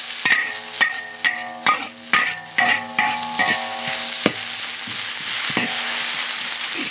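Metal spatula scraping and knocking against a large black wok while preserved mustard greens (meigan cai) are stir-fried, with a dry sizzle underneath. The strokes come about twice a second, some ringing briefly, then thin out after about four seconds, leaving mostly sizzling.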